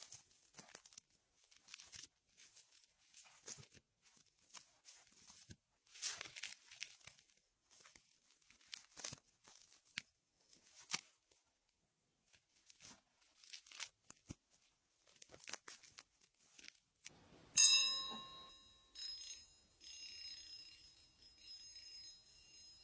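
Close-up scratching and crackling of an ear pick working inside an ear canal: faint, uneven scrapes and clicks. About three-quarters of the way through, a metal tool held by the ear is struck and rings loudly with several clear tones, then a second, softer ringing fades out.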